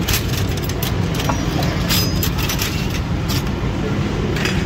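Soup ladled with a steel mug from a large pot and poured into steel bowls, with scattered short metal clinks and knocks over a steady low rumble.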